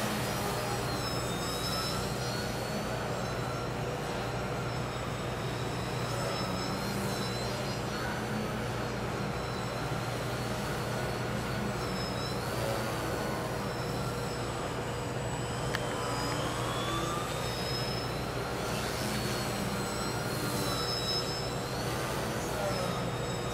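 Small electric motor and propeller of a scratch-built EPP foam RC Yak aerobatic plane whining in flight, its pitch rising and falling as the throttle is worked through hovers and passes, over a steady low hum.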